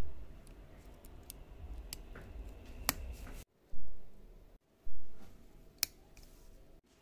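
A plastic spudger scraping and clicking against a phone logic board's metal shield cans, with two sharp clicks about three seconds apart. Three dull low thumps are the loudest sounds.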